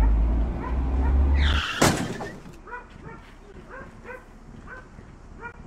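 A low rumble that stops about a second and a half in, then a sudden loud bang with a falling whoosh, the sound of a car collision. After it comes a string of short, high yelping calls from an animal.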